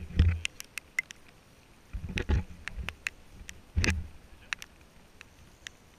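Three dull thumps on a small fishing boat, about two seconds apart, over scattered sharp ticks.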